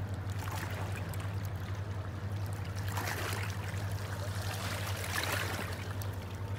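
River water lapping and splashing against a stone bank, with a couple of louder splashes, over a steady low hum.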